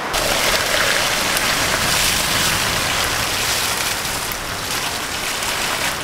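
Heavy downpour, a dense hiss of rain with wind rumbling on the microphone; it cuts in suddenly.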